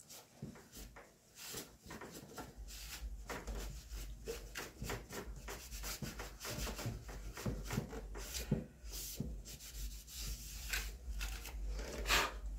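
Microfibre cloth rubbing over the plastic control panel and speaker-grill surround of a Yamaha PSR-E403 keyboard in quick, irregular wiping strokes, with a low hum underneath from about two seconds in.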